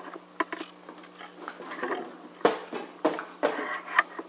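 Irregular knocks, clicks and light clinks of handling noise as the camera is picked up and moved, the loudest about two and a half and four seconds in, over a steady low hum.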